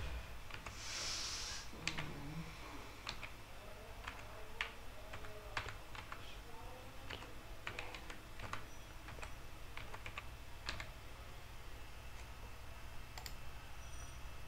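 Computer keyboard being typed on: irregular key clicks spread over several seconds as a password is entered, with a short hiss about a second in.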